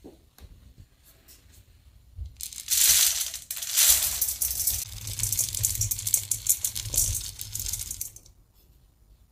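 Fresh rice koji grains poured from a wooden bowl into a stainless steel bowl: a dense, continuous spill of grains on metal that starts about two seconds in, lasts about six seconds and stops near the end.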